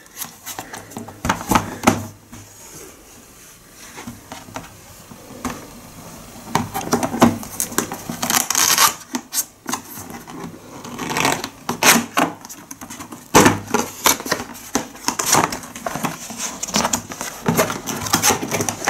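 Cardboard box being opened by hand: the lid and flaps pulled open and folded back, with irregular cardboard scraping and rustling and a scatter of light knocks and clicks.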